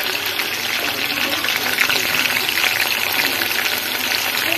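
Marinated chicken pieces shallow-frying in hot oil in a pan: a steady sizzle with dense, fine crackling.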